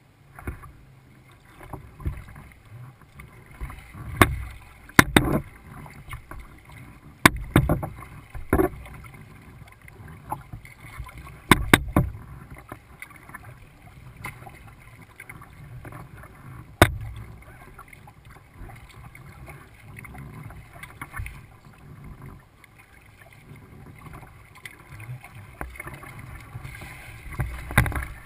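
Kayak being paddled on a lake: water splashing and lapping against the hull, with a few sharp clicks or knocks scattered through the first half.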